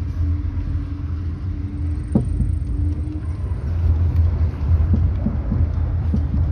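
Jeep Renegade driving with a steady low rumble, knocking from the suspension: one sharp knock about two seconds in and a run of lighter knocks near the end. The knocking, a 'toque-toque', is caused by play in a shock absorber rod.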